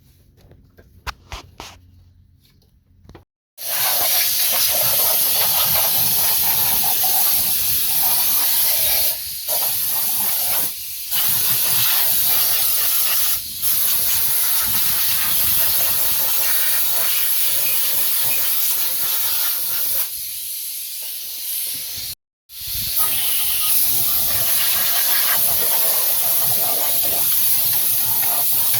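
A loud, steady hiss of a pressurised spray while the engine block's pistons and deck surface are cleaned. It starts suddenly about three and a half seconds in, after a few light clicks, and is broken by a few short gaps.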